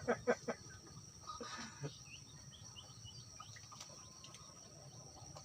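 Faint outdoor ambience: a thin, steady high-pitched insect drone, with a few short, quick bird chirps about two seconds in.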